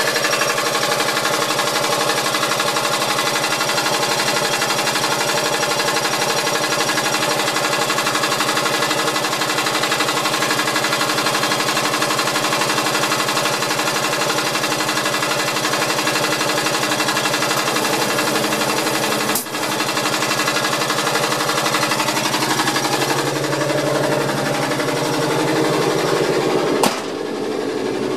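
Piston air compressor of a class 451 electric multiple unit running with a fast, steady rattle, building up air pressure as the unit is started up. A sharp click comes about two thirds of the way in, and a knock near the end, after which the sound changes.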